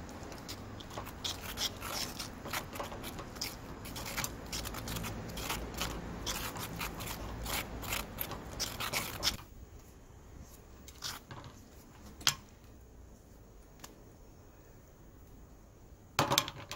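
A thin metal spatula scraping and stirring tile grout in a small metal bowl, mixing it into a stiff paste for filling screw holes: a quick run of scrapes and clicks that stops about nine seconds in, then a few separate clicks and a louder knock near the end.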